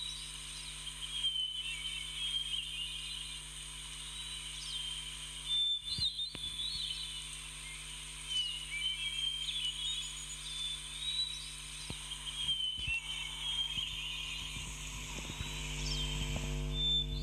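Birds chirping and twittering again and again over a steady low hum, a looped outdoor ambience; the low hum grows louder near the end.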